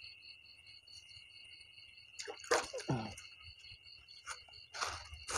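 Steady high trilling of night insects, one part pulsing evenly. A few short wet splashing sounds come about two seconds in and again near the end.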